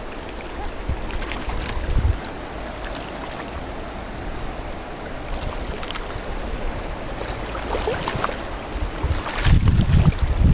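Shallow river current flowing steadily. Wind buffets the microphone with a heavy low rumble from about nine seconds in.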